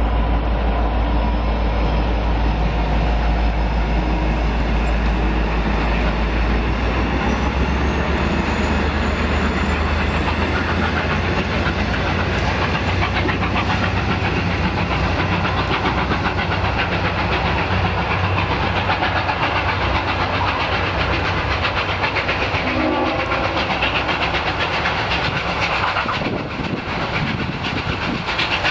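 A diesel-hauled passenger train running past on the near track, its wheels clicking over the rail joints, with a heavy low rumble in the first several seconds.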